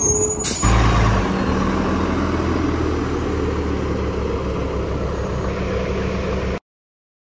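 MBTA city transit bus passing close for the first half second, then a standing transit bus's engine running at idle, a steady low hum. It cuts off abruptly near the end.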